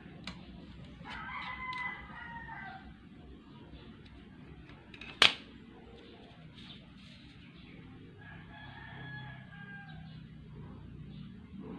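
A rooster crowing twice, once about a second in and again around eight seconds in, each crow lasting under two seconds. A single sharp click comes about halfway between the two crows.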